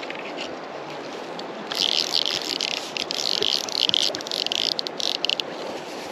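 Steady rush of creek water, with a louder hissing, crackling burst lasting about three and a half seconds starting about two seconds in.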